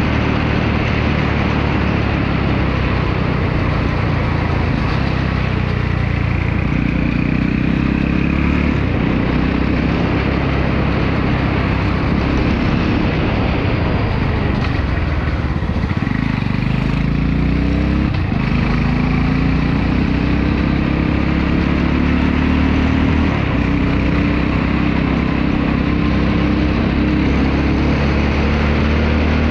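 Crossfire Korak motorcycle engine running at road speed, its pitch climbing several times as the rider accelerates through the gears. Heavy wind noise on the microphone runs over it.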